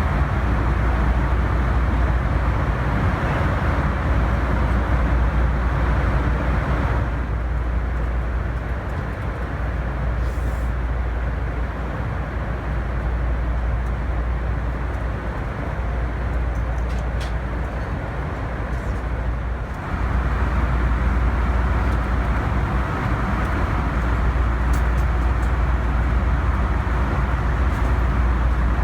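Steady cabin noise of a Boeing 747-400 in cruise: rushing airflow over a low engine rumble. It drops a little about seven seconds in and comes back up about twenty seconds in.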